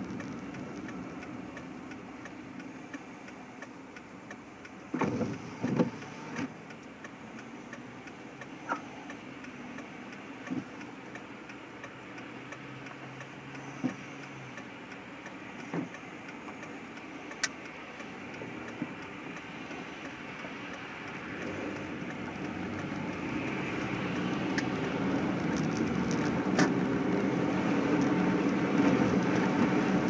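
Car engine idling with steady low cabin noise, broken by scattered, irregular sharp taps. Over the last several seconds the engine and tyre noise grow louder as the car pulls away.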